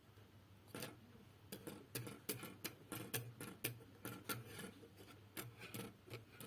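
Irregular light clicks and taps, a few a second, starting about a second in: small tools and parts being handled on a workbench during soldering of resistors onto a PCB board.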